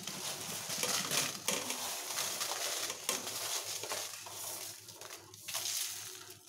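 Dried red chillies poured from a plate into an aluminium kadai: a dry, crackly rustle with many small clicks as the pods tumble against the pan, dying away near the end.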